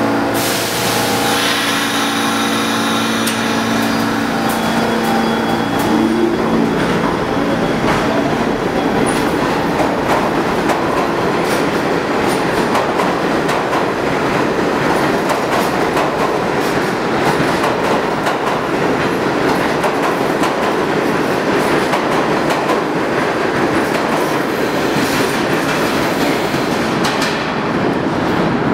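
R46 subway train pulling out of an underground station. A steady electrical hum is followed, a few seconds in, by motor whine rising in pitch as it accelerates, then wheels clattering over rail joints as the cars pass.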